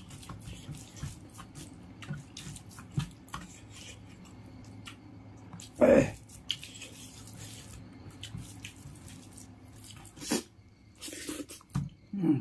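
Close, wet eating sounds: fingers squishing and kneading rice mixed with curry on a banana leaf, and mouth chewing, with many small sticky clicks and a few louder wet smacks, the loudest about six seconds in.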